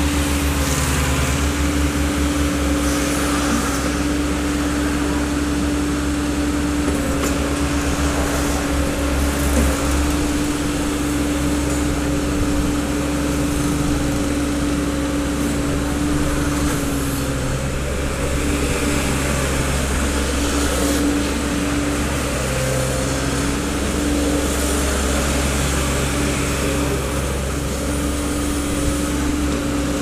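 Komatsu PC30-3 mini excavator's three-cylinder diesel engine running steadily while the boom, arm and bucket are worked, with a steady humming tone that dips slightly in pitch now and then.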